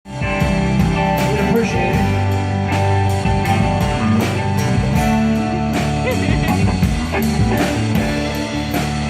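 A live band playing a blues-rock number: electric guitar over bass and a drum kit keeping a steady beat.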